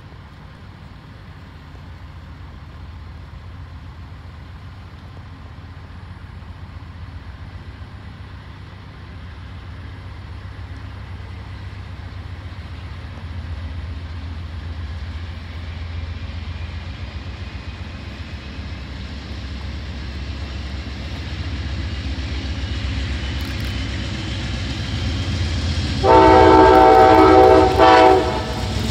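Amtrak GE P42DC diesel locomotive approaching, its low engine rumble growing steadily louder. Near the end its air horn sounds several notes at once in one long blast of under two seconds, followed by a short toot.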